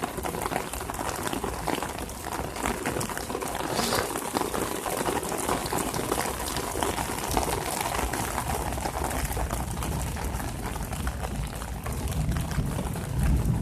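Rain falling steadily, many small drops hitting close to the microphone. A low rumble grows near the end.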